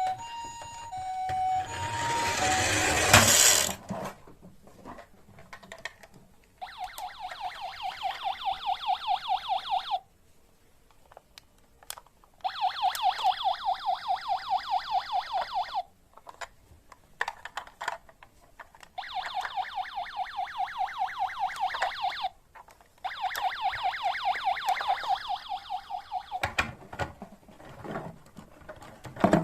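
Electronic sirens from battery-powered toy emergency vehicles. A two-tone high-low siren plays at the start, then a short rising rush of noise, then four bursts of a fast-pulsing electronic siren, each about three and a half seconds long with short gaps between.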